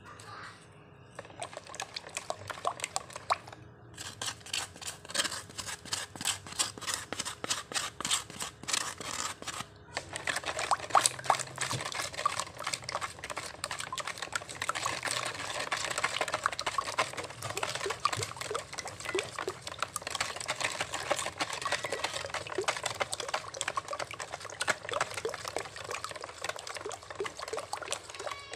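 A utensil beating egg-tart custard filling (eggs, sugar, milk, custard powder and hot water) in a bowl: rhythmic clicking against the bowl with liquid sloshing. About ten seconds in it becomes faster and louder.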